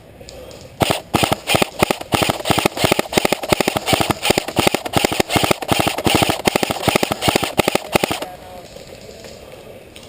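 Airsoft electric gun firing a long rapid string of plastic BB shots, sharp clicking reports several a second, starting about a second in and stopping suddenly after about seven seconds.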